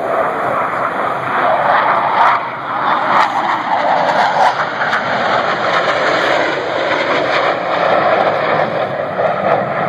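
Loud, steady jet engine noise from two Blue Angels F/A-18 Hornets flying past low.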